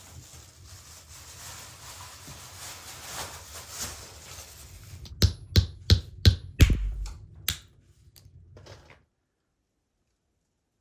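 A low steady rustle, then about six sharp knocks in quick succession, after which the sound cuts off suddenly.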